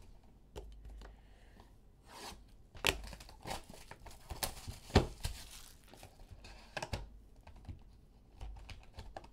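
Clear plastic shrink-wrap being torn and crinkled off a trading-card box: an uneven run of crackles and rustles with a few sharper snaps, the loudest about 3 and 5 seconds in.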